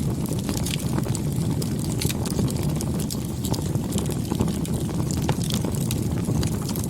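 Bonfire burning: a steady low rush of flames with irregular sharp crackles and pops of burning wood.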